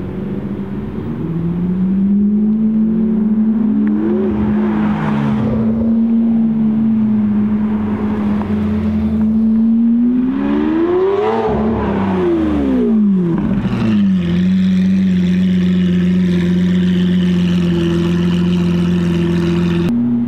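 Lamborghini Aventador's V12 with a straight-piped Akrapovic exhaust running with a steady drone, revved up and back down twice: briefly about four seconds in, and higher about eleven seconds in.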